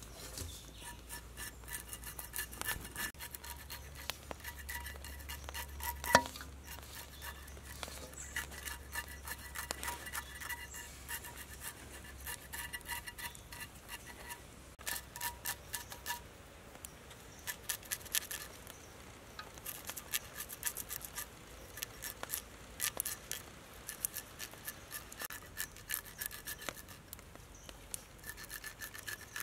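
A knife blade scraping along a snake's scaly skin in a metal wok, in irregular runs of short rasping strokes. One sharp knock on the wok about six seconds in is the loudest sound.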